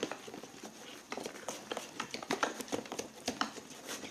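Spoon stirring a sticky slime mixture in a container, giving a run of irregular light clicks and taps.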